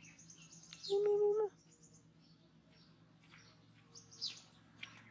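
Small birds chirping now and then, with a single short beep of steady pitch about a second in, the loudest sound.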